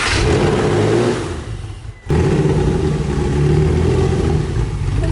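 Porsche 911 flat-six engine running just after starting up, its level swelling and easing off. About two seconds in the sound drops out abruptly and comes straight back, running steadily.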